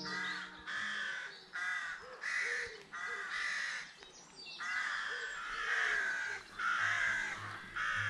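Crows cawing: a run of about nine harsh caws in quick succession, with a short pause about four seconds in.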